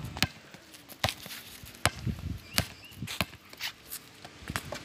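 Basketball dribbled on a concrete court: a series of sharp bounces, a little under a second apart.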